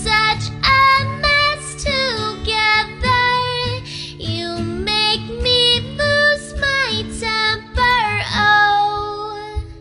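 A woman singing a pop melody over acoustic guitar. Near the end she holds a long note that fades.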